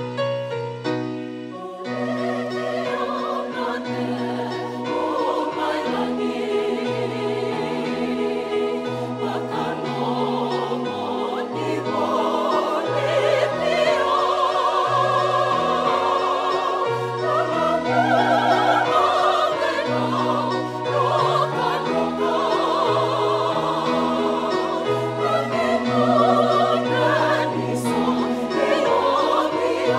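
A large mixed choir of men and women singing a hymn in Fijian, in parts, over a keyboard accompaniment with a steady stepping bass line. A few keyboard notes come first and the voices enter about two seconds in.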